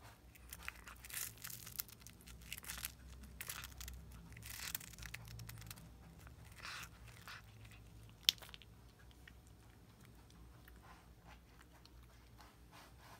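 A cat biting and chewing a whole capelin held in a hand: crackly crunching and tearing sounds come in clusters over the first seven seconds, with a single sharp click a little past the middle, then quieter, sparser chewing.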